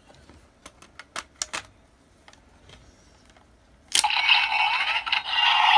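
A few light plastic clicks as the Hyper Key is handled and slotted into the DX GUTS Sparklence toy. About four seconds in, the toy's small speaker starts playing a loud, tinny electronic sound effect.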